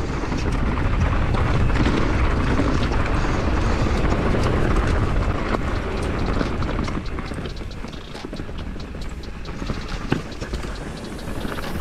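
Downhill mountain bike ridden fast over a rough, rocky trail: tyre noise over a constant low rumble, peppered with the clatter and knocks of the bike hitting rocks and roots. It eases off a little after about seven seconds, with sparser knocks.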